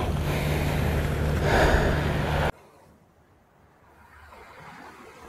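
Sea surf and wind buffeting the microphone as a loud, even rush with a low rumble. It cuts off abruptly about halfway through, leaving only a faint sound.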